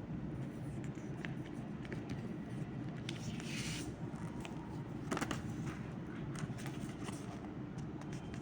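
Hands opening a cardboard card-deck box and handling the paper and cards inside: light scraping, rustling and small clicks, with a short rustle about three seconds in and a few sharper taps around five seconds, over a steady low hum.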